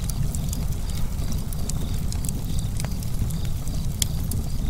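Wood fire burning, with a steady low rumble and frequent sharp crackles and pops from the logs.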